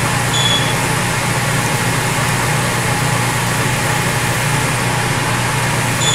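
Milling machine spindle running steadily in high gear while a drill bit is fed into a steel block. Brief high squeaks come about half a second in and again near the end.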